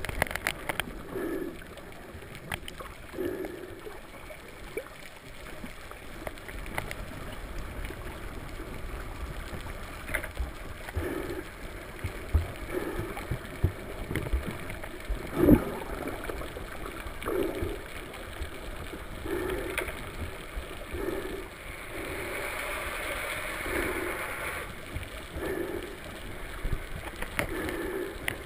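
Muffled underwater sound while snorkeling: a steady water noise with scattered sharp clicks and a soft low pulse about every one and a half to two seconds, and a brief hiss a little after two-thirds of the way through.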